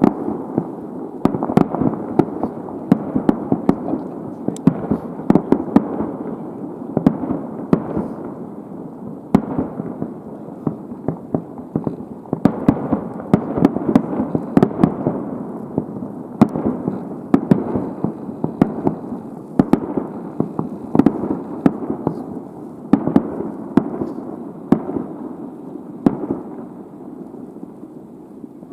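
Fireworks going off in a rapid barrage: sharp bangs about twice a second over a continuous roll of overlapping bursts.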